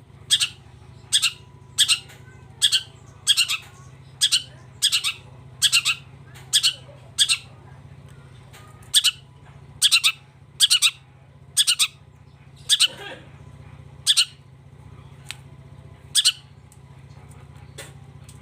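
Long-tailed shrike (cendet) giving a run of about twenty short, harsh, rasping calls, roughly one every three-quarters of a second with a few longer pauses, over a steady low hum.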